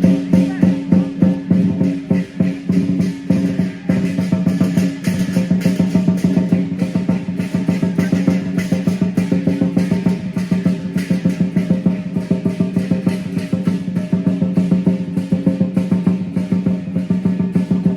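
Lion dance drumming: a big Chinese lion drum beaten in fast, dense rolls with cymbals and gong clashing along, a continuous driving rhythm.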